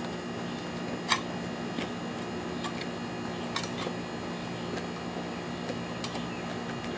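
Steady low hum with a few short, sharp clicks scattered through it, the loudest about a second in.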